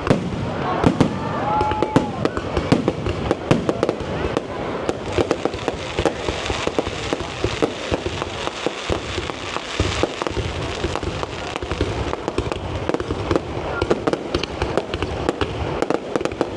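Fireworks display: aerial shells bursting in quick succession, a dense run of sharp bangs and crackles, several a second.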